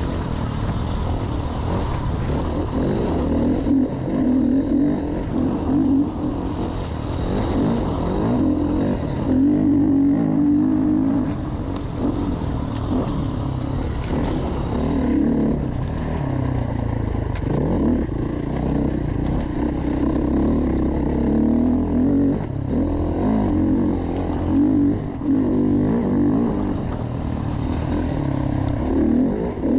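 Enduro dirt bike engine revving up and down with the throttle as it is ridden hard. Short knocks and rattles from the bike come through now and then.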